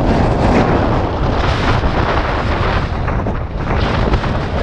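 Strong wind buffeting the camera's microphone: loud, low rumbling rush that comes in gusts, easing briefly about three seconds in.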